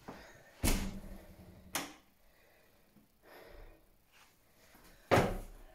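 Three sharp knocks or thumps in a small room: a loud one about half a second in, ringing briefly after it, a lighter one about a second later, and another loud one near the end.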